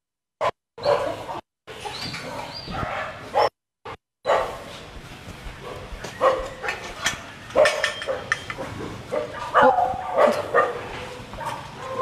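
Dogs barking and yipping, many short barks in quick succession. A few brief dropouts to silence break up the first few seconds.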